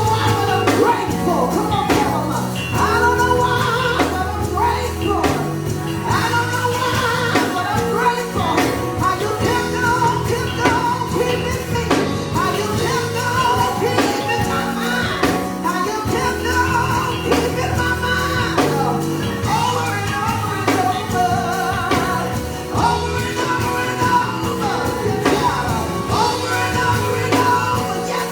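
Live worship band playing with singers, a gospel praise song with bass, drums and sung melody lines.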